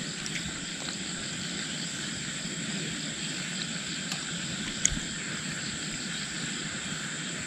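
Pasta cooking in a pot on a camp stove, a steady sizzling hiss, with one light click about five seconds in. The pasta has begun to scorch on the bottom of the pot.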